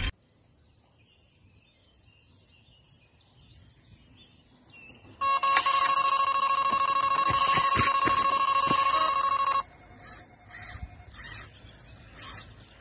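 Electronic carp bite alarm going into a continuous steady tone for about four seconds, then breaking into a handful of separate beeps: a run, a fish taking line off the reel. Before it, about five seconds of faint birdsong.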